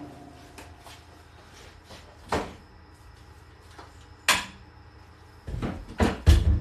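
A few separate knocks and clunks of objects being handled and set down: one about two seconds in, another a couple of seconds later, then a cluster of heavier, deeper thuds near the end.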